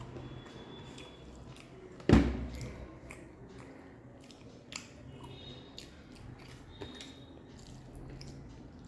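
Wet squishing of rice and yellow dal being mixed by hand on a plate, with mouth chewing. A single sharp knock about two seconds in, and a few fainter clicks later.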